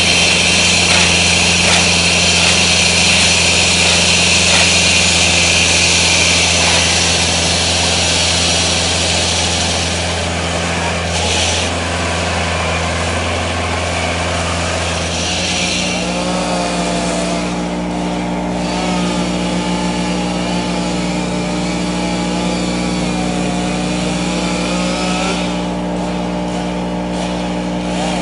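Walk-behind petrol road saw running, its blade cutting into the road surface with a loud high hiss over a steady engine note. About halfway through the hiss eases and the engine settles to a different steady note.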